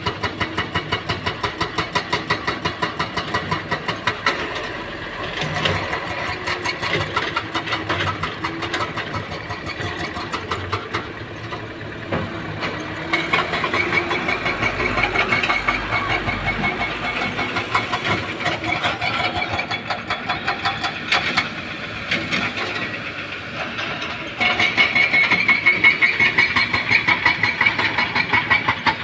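Heavy diesel engine of an excavator at work, running with a rapid regular throb. It grows louder about three-quarters of the way through.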